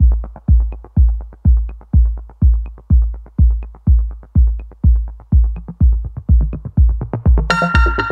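Electronic background music: a deep bass kick drum beating steadily about twice a second, with faint light ticks between the beats; a brighter synth layer comes in near the end.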